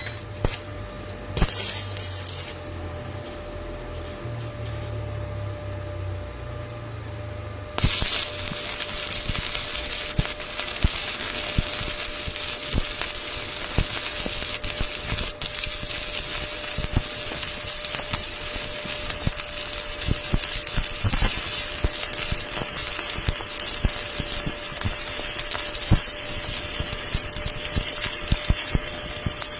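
Welding arc crackling and hissing steadily, with many irregular pops, starting suddenly about eight seconds in after a low hum and a few metallic clinks.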